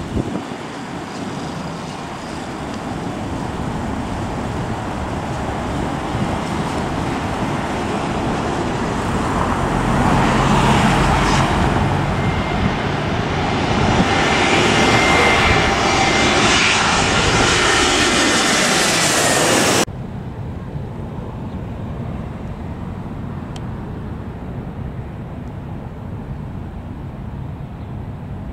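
Airbus A320-family jet on final approach passing close overhead. Its engine noise builds steadily, peaks with a falling whine as it goes over, then cuts off abruptly a little over two-thirds of the way through, leaving the fainter steady rumble of a more distant approaching jet.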